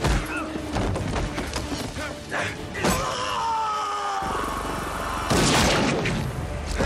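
Action-film sound mix: a music score over repeated booms and thuds of impacts, with a falling, sliding tone about three seconds in.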